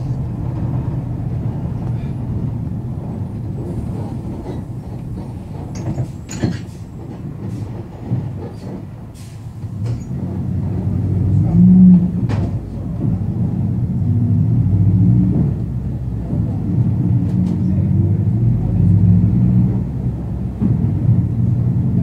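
The MAN D0834 four-cylinder inline diesel of a Volkswagen 17-230 OD Euro V bus running under way. Its note dips a little, then grows louder from about halfway, with scattered light clicks and knocks over the engine.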